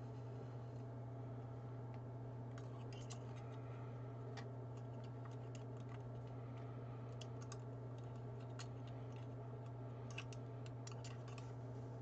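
Scattered faint light clicks and taps, irregular and a few at a time, over a steady low hum.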